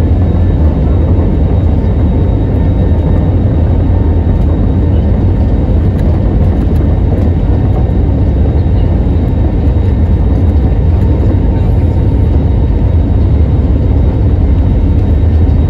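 Cabin noise of an Airbus A320neo taxiing: a loud, steady low rumble from its CFM LEAP-1A engines at low thrust, heard through the cabin wall, with a faint steady whine above it.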